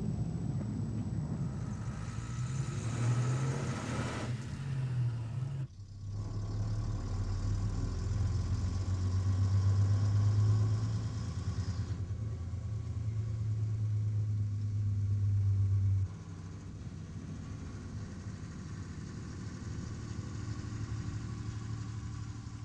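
A motor vehicle's engine running steadily with a low hum. The sound breaks off abruptly and restarts about six seconds in, and the engine drops away about sixteen seconds in, leaving a fainter background.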